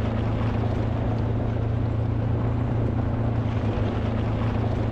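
Small engine or motor running steadily at an even speed, giving a constant low hum.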